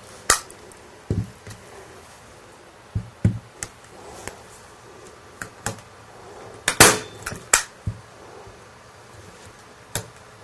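Stapler fastening a jersey fabric curtain to the frame of a puppet theater: a series of sharp, separate clacks, the two loudest close together about seven seconds in, with softer knocks of handling between.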